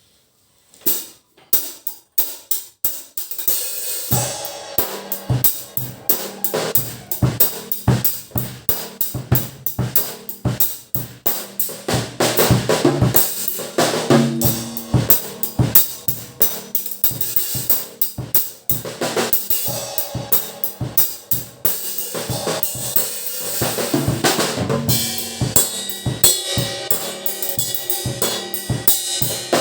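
Acoustic drum kit played for a sound check: a few separate hits about a second in, then from about four seconds a busy groove of snare, bass drum and hi-hat with cymbal crashes.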